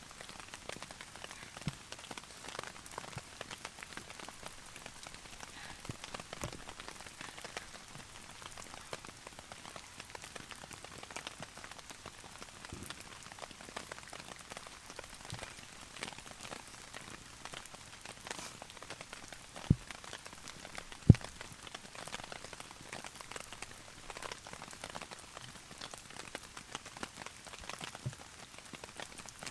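Heavy rain pattering steadily on a tarp, a dense haze of fine drop ticks. Two sharper knocks stand out about two-thirds of the way through.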